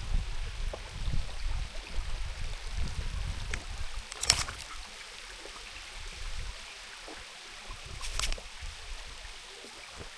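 Flowing water running steadily, with wind buffeting the microphone in gusts during the first half. Two short sharp knocks stand out, one about four seconds in and one about eight seconds in.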